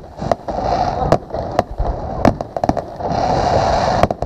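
Aerial fireworks going off: a rapid, irregular series of sharp bangs over steady crackling and a low rumble, with the crackle running unbroken for about a second near the end.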